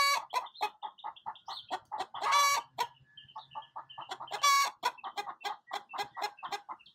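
Laying hens singing the egg song: a chorus of rapid clucks, each run rising into a long, drawn-out squawk, three times in a row. It is the loud cackle hens make around laying an egg.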